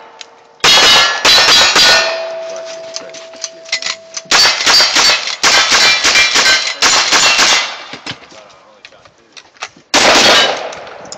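Gunshots from a revolver and then a lever-action rifle, fired in quick succession at steel targets, each followed by the ringing clang of a hit steel plate. A few revolver shots in the first two seconds give way to a steel plate ringing on through a pause. A run of rifle shots about half a second apart follows, with one last loud shot near the end.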